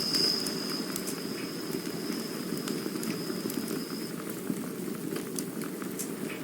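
Campfire burning, with a steady low rush and scattered small crackles and pops; a thin high whistle, like steam hissing from the wood, fades out about four seconds in.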